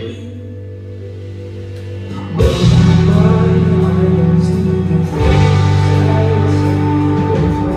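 A band playing at a sound check: soft held tones, then the full band comes in loud with heavy bass about two and a half seconds in, holding long chords, with a short break and re-entry a little after five seconds.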